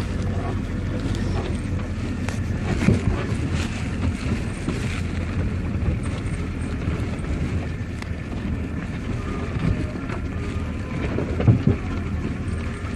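Vehicle driving over a rough off-road track: a steady low rumble with occasional knocks and rattles, the sharpest about three seconds in and near the end, and wind buffeting the microphone.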